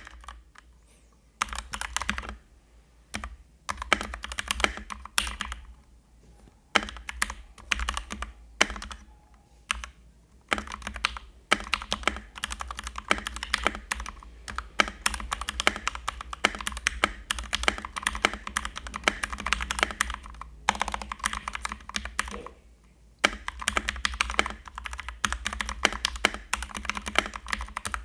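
Typing on a Keychron K2 mechanical keyboard with red linear switches: quick runs of key clicks in bursts, broken by short pauses, with long unbroken stretches in the second half.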